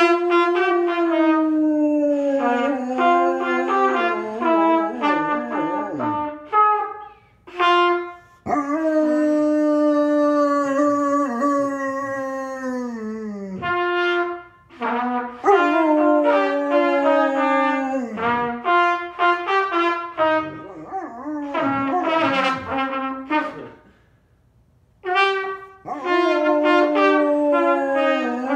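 Beginner's trumpet playing halting, wavering notes while a Newfoundland dog howls along, long held tones sagging in pitch at their ends, with a brief pause near the end.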